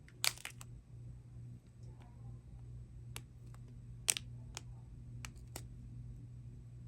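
Faint, scattered clicks and ticks from small plastic bags of diamond-painting drills being handled, about seven in all, the sharpest near the start and about four seconds in. A low steady hum lies under them.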